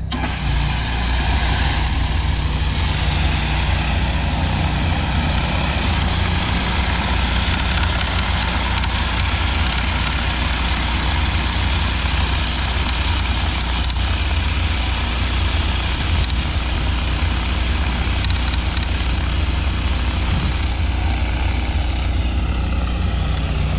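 Hot-water pressure washer's rotary surface cleaner spraying across concrete, a loud steady hiss that starts right at the beginning, over the steady running of the pressure washer's engine. Near the end the hiss loses some of its highest part.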